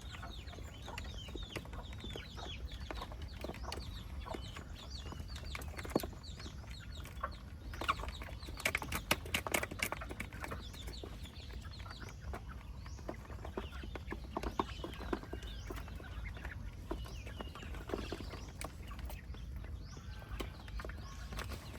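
A flock of chickens clucking and peeping in many short chirps, with a flurry of sharp clicks and scuffles about eight to ten seconds in, over a steady low rumble.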